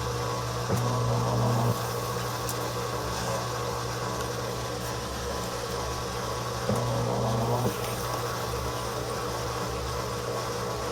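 Haier HLP23E portable washing machine's motor and drain pump running with a steady hum, broken twice by a brief rev of about a second, once about a second in and again about seven seconds in. The revs jog the spin basket to level the load before the spin.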